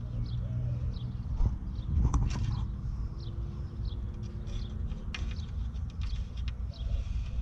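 Creaks and a few sharp clicks from plastic headlight and trim parts being pushed and handled by hand, with small birds chirping in the background.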